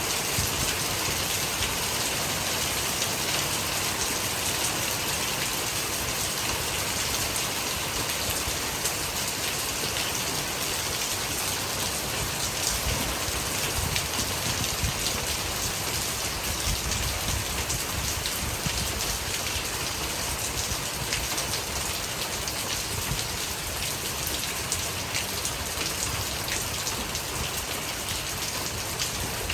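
Steady heavy rain pouring down: a constant even hiss with scattered sharp ticks of drops striking close by.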